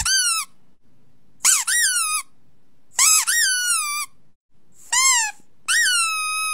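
Pug puppy howling in five short, high calls, each rising and then sliding down in pitch; the last one is drawn out longer.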